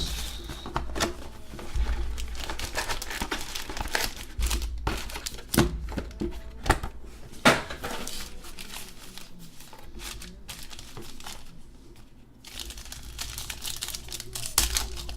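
Trading card packaging being torn open and crinkled as boxes and packs of 2017 Panini Chronicles Baseball are opened. It is an irregular rustling with several sharp snaps in the middle, and it eases off briefly near the end.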